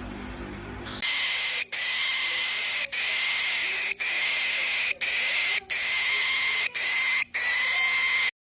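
Baby cockatiels giving a loud, raspy hissing call, like a snake or barn owl. The hisses come as a run of about eight, each roughly a second long with brief gaps between them, starting about a second in and cutting off abruptly near the end.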